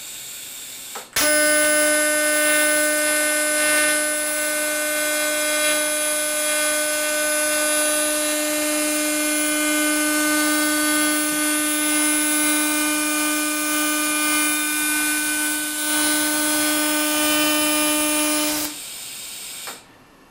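TIG welding arc on stainless steel at low amperage: a steady buzzing hiss with a strong constant tone. It starts about a second in and cuts off near the end, followed by about a second of softer hiss.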